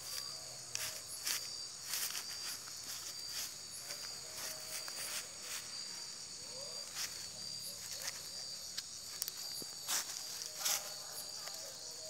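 Crickets chirring in a steady high-pitched night chorus, with scattered sharp rustles and crackles of dry grass.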